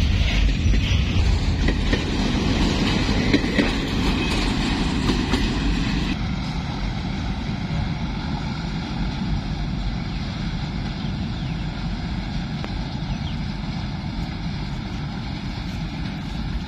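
Freight train of tank-container wagons passing close, wheels clattering over the rail joints with a heavy rumble. About six seconds in the sound changes abruptly to a steadier, fainter train rumble with a faint steady hum, slowly fading as a diesel locomotive draws away down the line.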